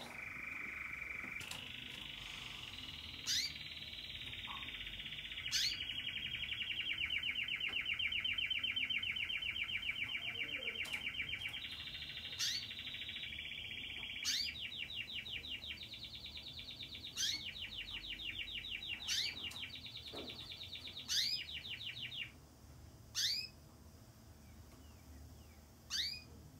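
Belgian canary (domestic canary) singing a long, unbroken song of rapid trills. Sharp high chirps come about every two seconds. The trilling stops about four seconds before the end, leaving only the chirps.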